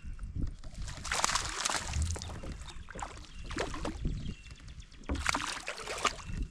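Water splashing and sloshing beside a kayak in several bursts, as a hooked fish is fought and brought to the boat.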